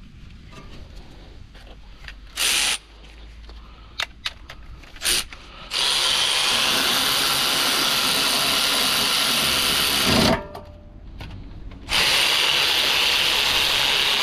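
Handheld power tool, drill-type, running bolts in during brake and wheel reassembly: three short bursts, then a steady run of about four seconds, a short pause, and a second steady run.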